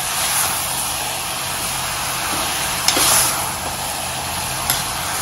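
Guar beans and peas sizzling steadily as they fry in oil in a pressure cooker while a metal spoon stirs them. The spoon knocks against the pot twice, about three seconds in and near the end.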